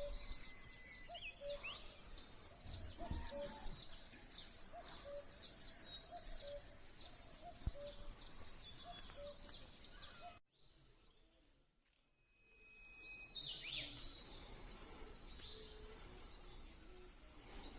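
A chorus of small birds chirping and twittering in quick, high notes. Through the first half another call repeats one low note about every 0.7 seconds. A little past ten seconds everything drops away for about two seconds, then the chirping returns, louder near the end.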